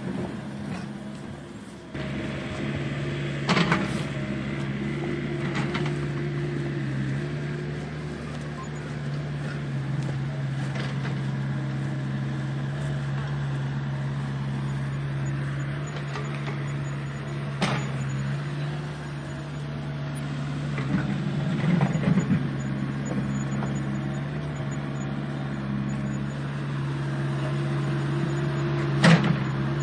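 Huina 1593 radio-controlled excavator's electric motors whining steadily as it works, with a few sharp knocks scattered through, the loudest near the end.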